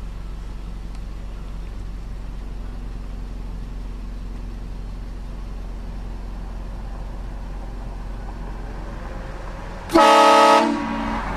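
A short, loud blast of a train horn, a chord of several tones lasting under a second, comes about ten seconds in. Before it there is only the steady low hum of a vehicle running.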